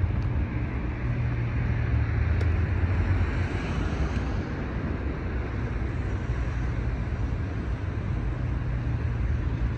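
Steady city street traffic with a deep rumble; a vehicle passes about four seconds in.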